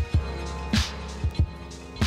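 Instrumental background music with a steady drum beat: thumping kicks and sharp snare hits over held low bass notes.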